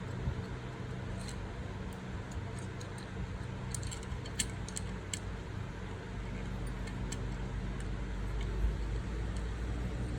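Hot air rework station blowing with a steady hum, with scattered small metallic clicks and scrapes from a tool working the phone's board.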